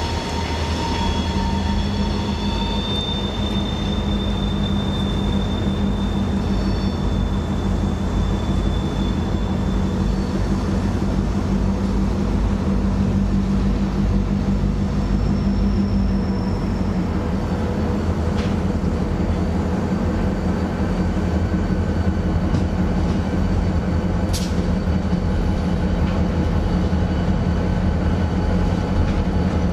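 Norfolk Southern diesel locomotives approaching, their engines a steady low drone that grows a little louder in the first few seconds.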